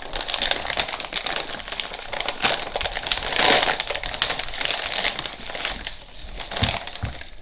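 Thin clear plastic bag crinkling and rustling as hands work it open and pull something out, loudest about halfway through.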